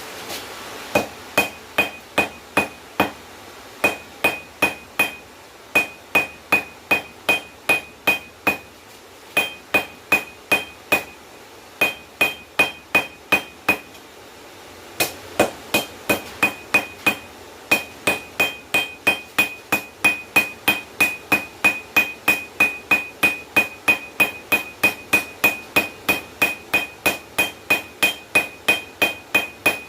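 Hand hammer forging steel bar on an anvil: runs of sharp blows at about two to three a second, each with a bright ring. There are short pauses between runs and a longer pause of about a second near the middle.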